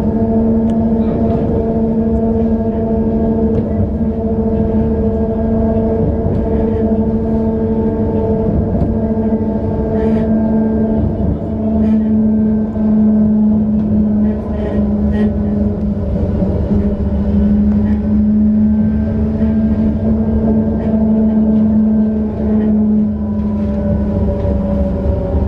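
Tram in motion: a steady hum in several tones from its drive, over a low rumble of wheels on rails, with occasional short clicks. The hum drops in pitch near the end.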